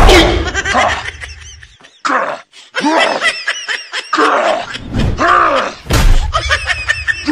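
Edited comedy sound effects: a heavy thud at the start, then a string of short comic voice sounds, each rising and falling in pitch, like groans or whoops.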